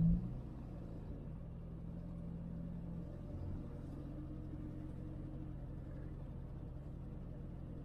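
Simca 8's 1200 cc four-cylinder engine running steadily as the car is driven, heard from inside the small cabin as a low, even hum.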